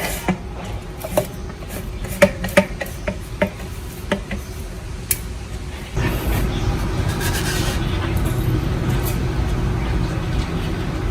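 Sharp metallic clicks and knocks from engine parts being handled and worked, then about six seconds in a steady mechanical running noise with a low hum starts suddenly and carries on.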